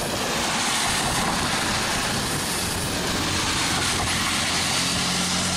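Floodwater rushing through an irrigation canal: a steady, loud roar with no break. A low engine hum comes in near the end.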